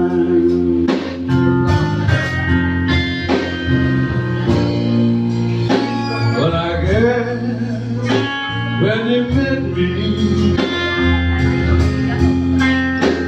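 Live blues band playing an instrumental passage: electric guitar lead with bent notes over a steady bass line and drums.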